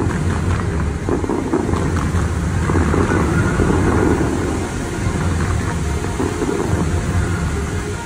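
Dubai Fountain's water jets rushing and splashing as they fire and fall, under wind rumbling on the microphone.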